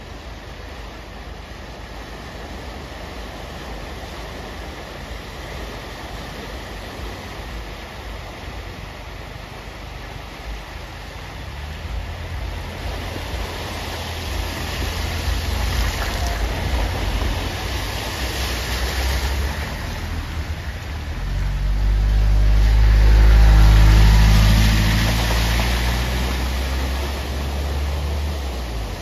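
Cars driving through deep floodwater flowing across a road, with a steady rush of water underneath. A car's tyres swishing and splashing through the water grow louder from about twelve seconds in. About three-quarters of the way through, a car's engine passes close and is loudest while its wheels throw up spray, then it fades away.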